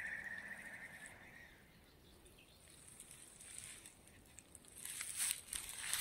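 Footsteps and rustling through dry grass and forest litter, quiet at first and growing louder with crackles toward the end.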